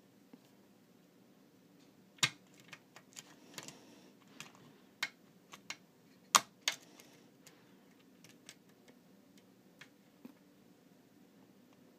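Irregular sharp clicks and taps of a lock pick and tension wrench working the pin tumblers of a Prévost lock with spool pins, during picking. The loudest clicks come about two seconds in and about six seconds in, with a cluster of lighter ones in between.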